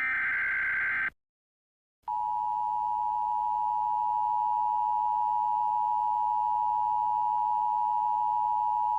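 Emergency Alert System tones: the last of the three SAME header data bursts, a harsh one-second digital buzz, then a second of silence, then the EAS two-tone attention signal (853 and 960 Hz) starting about two seconds in and holding steady.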